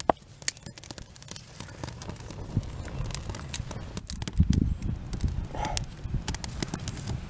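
Small stick-and-twig teepee fire burning with scattered sharp crackles and pops. A couple of low thumps come about halfway through.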